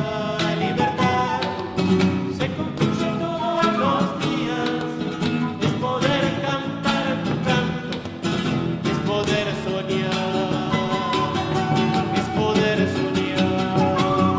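Latin-style music with plucked guitar and a quick, steady pulse.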